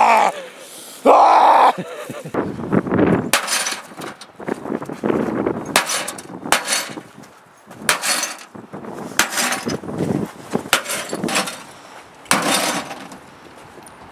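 A microwave oven being smashed with a bat: a string of hard blows on its casing and glass door, with breaking and clattering. A man yells loudly just before the blows start.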